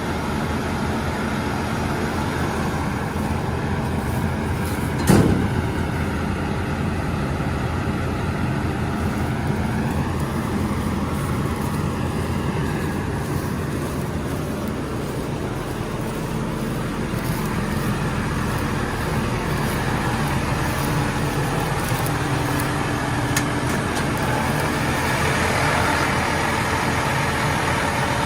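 Combine harvester running steadily, with one sharp knock about five seconds in.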